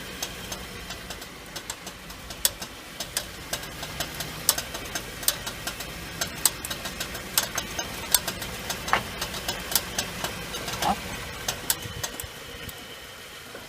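Front wheels of a 2013 Subaru XV clicking while the car is moving: sharp, uneven clicks several times a second over a steady engine and road hum. The clicking is heard mostly when turning, and the owner is unsure whether a wheel bearing or a drive axle is at fault.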